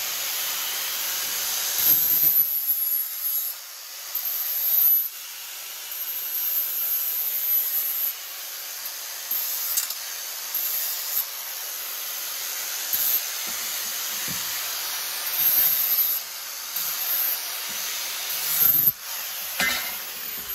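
A power tool working the edges of the cut faceplates: a continuous high hiss with a high whine coming and going, and repeated louder rasping passes every second or two as it bites into the material.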